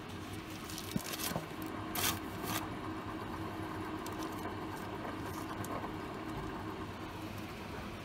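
Steady machine hum with a faint held tone, with a few short scratchy rustles and clicks between about one and three seconds in, the loudest about two seconds in.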